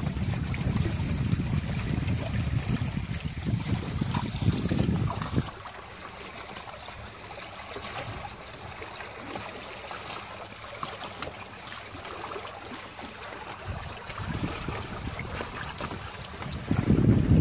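Wind buffeting the microphone on a sailing trimaran for the first five seconds or so, then quieter water rippling and trickling along the hulls, with another gust of wind near the end.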